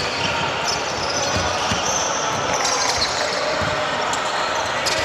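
A basketball bouncing on the court during a game: irregular short thuds over steady background noise.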